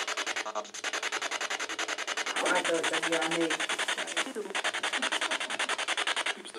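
Spirit box sweeping through radio stations, played through a small portable speaker: a fast, even stutter of radio static, with brief snatches of voice-like broadcast sound a little before the middle.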